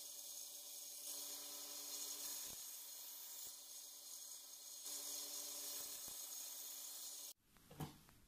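Belt grinder running steadily with a high hiss and a faint motor hum as a steel cleaver blade is worked against the belt. The sound cuts off abruptly near the end, and a single knock follows.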